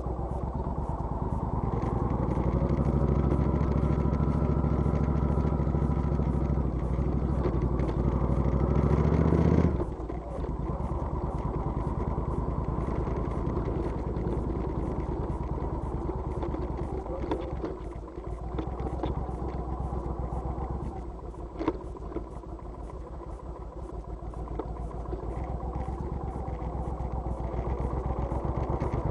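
Motorcycle engine running with its pitch rising steadily for about nine seconds, then dropping off suddenly. An engine keeps running at a lower, steadier level afterwards, with one sharp click later on.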